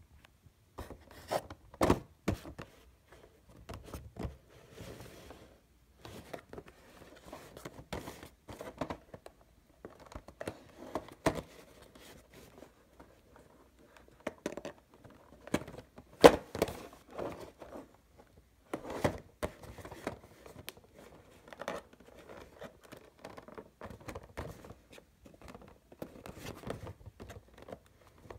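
Hands handling a cardboard Funko Pop box: fingers rubbing, scraping and tapping the cardboard in irregular rustles and knocks, the loudest knocks about two seconds in and around sixteen seconds.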